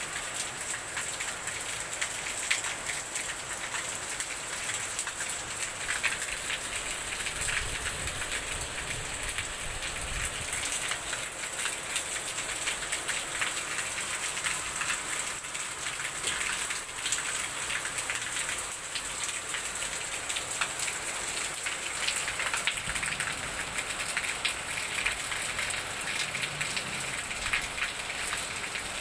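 Steady rain, a dense hiss of many drops hitting the ground.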